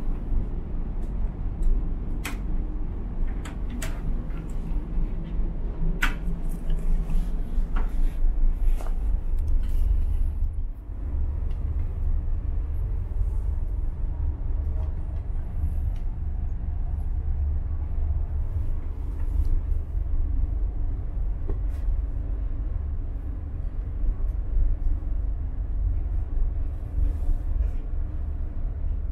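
Steady low rumble of the ferry's engines and hull underway, heard inside a cabin, with a few sharp clicks and knocks in the first nine seconds or so as fittings are handled.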